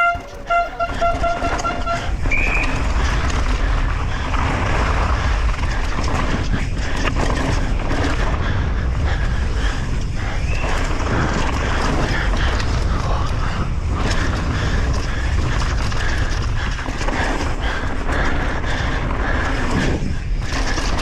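Downhill mountain bike at speed on a rough course: wind rushing over the camera microphone, with the bike clattering over the ground. A horn sounds in short pulsed blasts at the very start, then stops.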